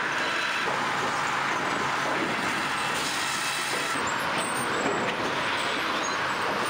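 Steady machinery noise of a log conveyor at a mill's bucking station, running as it carries a trimmed peeler block.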